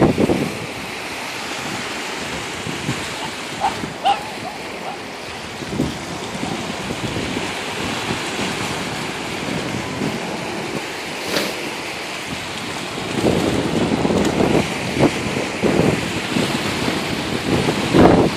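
Small waves breaking on a sandy beach, with wind buffeting the microphone in gusts that grow stronger near the end.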